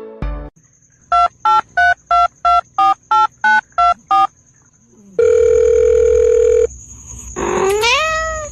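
A run of about ten short electronic beeps of slightly varying pitch, like phone keys being pressed, followed by a steady beep tone lasting about a second and a half. Near the end comes a rising, wailing call.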